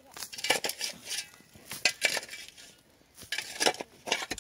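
A dozen or so irregular crunches and clinks of stones and rubble, sharp knocks spread unevenly with short quiet gaps between them.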